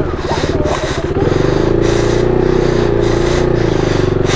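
KTM RC390's single-cylinder engine running steadily at low revs.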